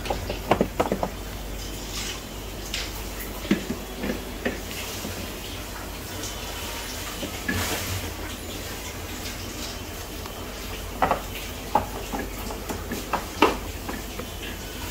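Eggs clicking and tapping against one another and against the plastic refrigerator-door shelves as they are set in by hand, in scattered light clinks that come in small clusters.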